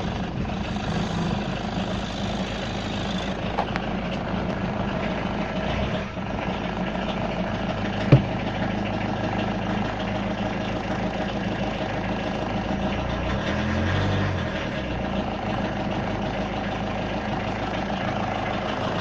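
VW Passat B2's 1.6 turbodiesel engine idling steadily just after a cold start at −23 °C. A single sharp click comes about eight seconds in, and the low rumble swells briefly near fourteen seconds.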